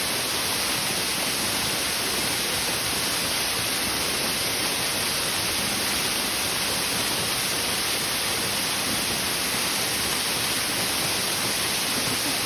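Waterfall: the steady rushing of falling water, hissy and even.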